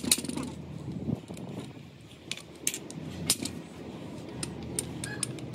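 Scattered light metallic clinks and taps of tools and parts being handled, over a steady low hum.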